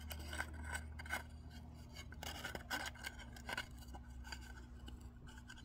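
Faint, irregular scraping and clicking of a metal wire rubbing against a terracotta pot as it is threaded through a hole in the pot wall and bent by hand, over a low steady hum.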